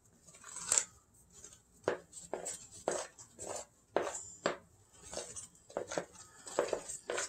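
A spatula spoon stirring sticky bread dough in a glass mixing bowl: irregular scrapes and knocks against the bowl, one or two a second.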